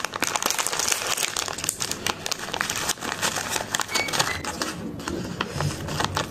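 A plastic snack packet crinkling as it is pulled open and handled by hand, with dense, crackling rustles that thin out about four and a half seconds in.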